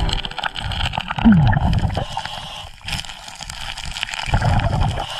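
Underwater sound of stream water gurgling and rushing past the microphone, with many small clicks and clatters of gravel and stones moved by a hand digging in a bedrock crevice.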